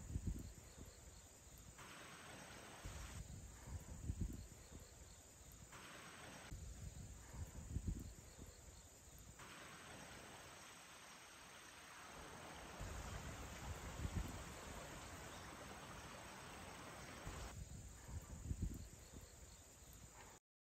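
Insects chirping steadily in countryside in autumn, faint and even. Low rumbling thumps on the microphone come about every four seconds, and the sound cuts out just before the end.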